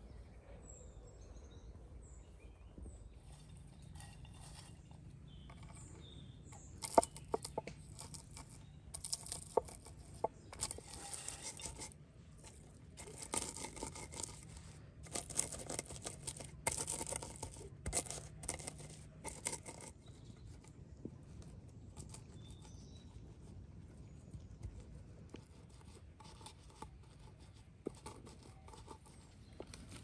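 Shelled walnuts being crushed and ground with a hand-held stone on a wooden board: a run of gritty crunching and scraping strokes with a few sharp knocks, through the middle of the stretch. Birds chirp faintly at the start.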